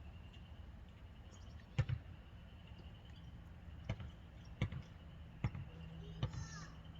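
Faint, scattered clicks and taps of small carburetor parts being handled, about five separate knocks as the diaphragm spring and cover are pressed back into place, over a steady low hum.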